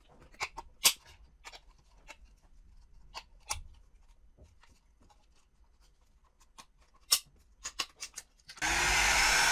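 Scattered light clicks and taps of a screwdriver and small metal parts as a scooter's controller box is worked open. About eight and a half seconds in, a hair dryer switches on and runs steadily, set to blow hot air on water-soaked wiring to dry it out.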